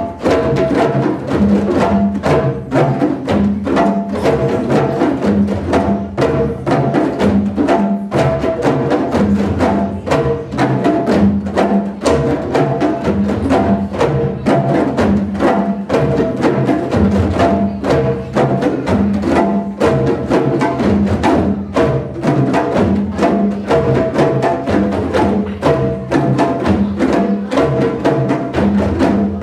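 Group djembe drumming: many djembe hand drums played together with large drums struck with sticks, in a steady, dense rhythm.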